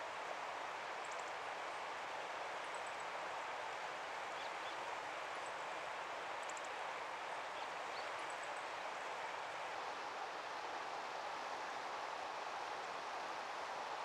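Steady outdoor background hiss with no clear single source, broken by a few faint, brief high-pitched chirps of small birds.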